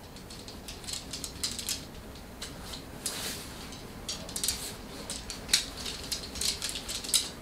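Irregular light clicks, taps and rustling of small objects handled on a desk, the sharpest clicks a little past halfway and near the end.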